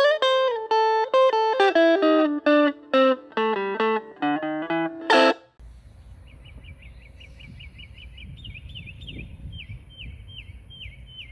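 Guitar music, a riff of short single notes, runs for about five seconds and then stops abruptly. It gives way to outdoor ambience: low wind noise and a bird repeating a short, high chirp about three to four times a second.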